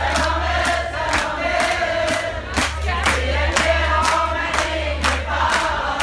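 A crowd singing along together and clapping in time, about two claps a second, over a steady low bass.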